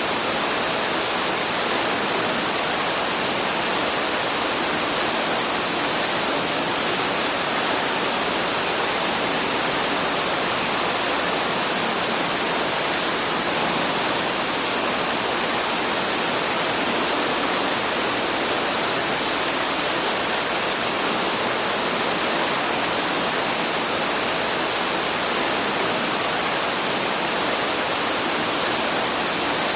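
Waterfall: water pouring and rushing in a steady, unbroken hiss.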